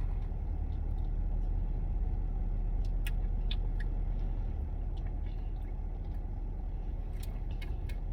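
Steady low rumble of a car, heard from inside the cabin, with a few faint light clicks.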